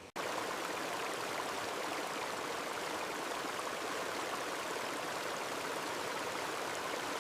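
Steady rush of running water from a garden pond's water feature, starting abruptly just after the beginning and holding even throughout.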